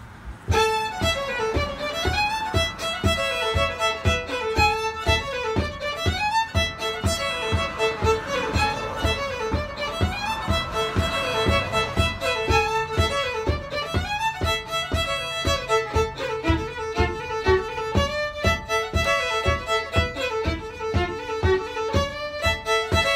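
Solo fiddle playing a fast reel in 4/4 time: a quick run of bowed notes beginning about half a second in.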